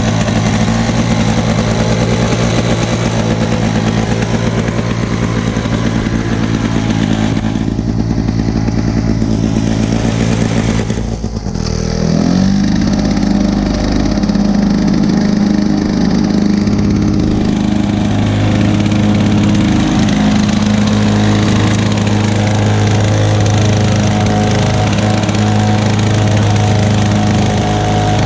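Two-stroke engine of a 1986 Lawn-Boy 8461 commercial push mower, oil-injected, running steadily. About eleven seconds in it dips briefly with a falling pitch, then settles back into a steady run.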